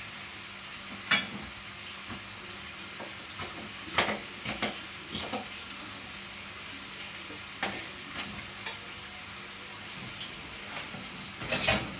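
Steady sizzle of food frying in a pan on a gas stove, with a few short clicks and taps of utensils on the counter.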